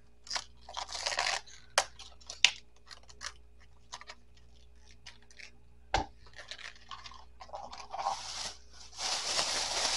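Crisp scraping and rustling strokes as the outer leaves are pulled off a head of cabbage, with a sharp knock about six seconds in and a steady hiss starting near the end.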